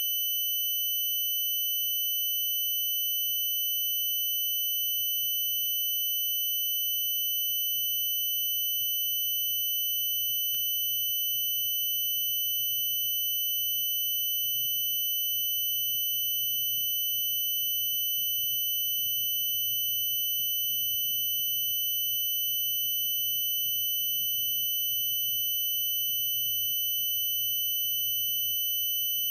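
A continuous high-pitched tone, unchanging in pitch and loudness, over a faint low rumble.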